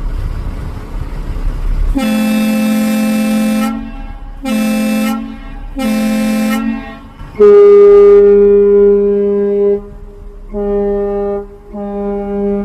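Two ship horns of different pitch blowing in turn: the first sounds one long and two short blasts, then a second, higher horn answers with one long and two short blasts. A low rumble is heard for the first two seconds.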